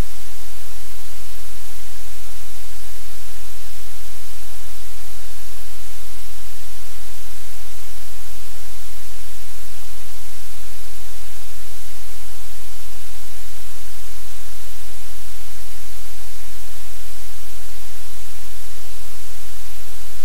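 Loud, steady hiss like white noise or static, unchanging throughout, with a low hum underneath.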